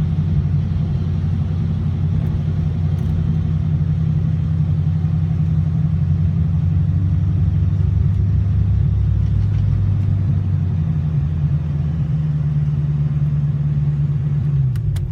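An LS1 V8 in a BMW 318ti running hard at a fairly steady, high engine speed, with road and wind noise under it. The engine note drops off sharply near the end.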